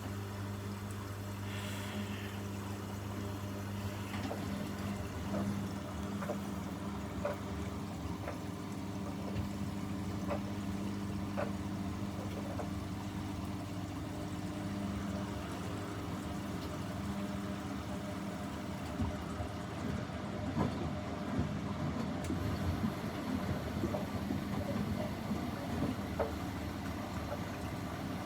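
Washing machine running mid-wash: a steady motor hum under water sloshing in the drum, with scattered soft knocks. The sloshing grows busier and louder for the last several seconds.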